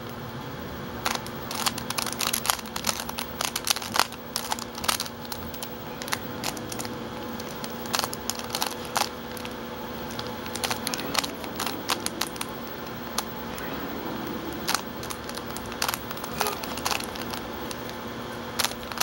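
Plastic 3x3 Rubik's cube being turned by hand, its layers giving a quick, irregular run of clicks and clacks as they twist. The cube has been lubricated with vegetable oil. A steady low hum runs underneath.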